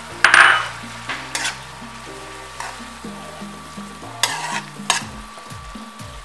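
A large metal spoon stirring and scraping salt cod stew in a metal caldero, with the liquid sizzling in the hot pot after a little water has gone in. There is a loud hiss just after the start, then several separate scrapes of the spoon.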